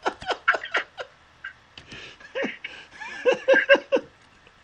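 Laughter in short, quick bursts: a run of rapid pulses at the start, then four even 'ha' pulses about three seconds in.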